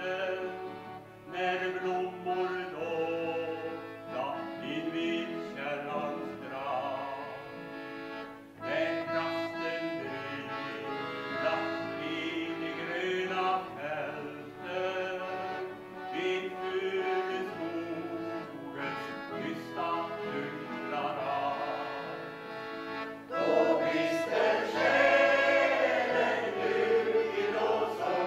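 A man singing a solo line to accordion accompaniment; about 23 seconds in, the mixed choir comes in together and the singing grows louder and fuller.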